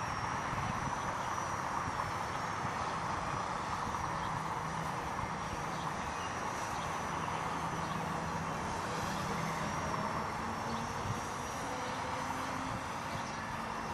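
Micro RC helicopter (Walkera 4#3B with brushless motor) flying, its motor giving a thin high whine that wavers slightly in pitch over a steady rotor hiss. Wind rumbles on the microphone underneath.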